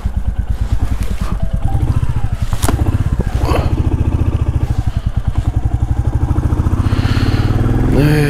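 Warmed-up motorcycle engine running with a steady, even low pulse. A single sharp click comes about two and a half seconds in.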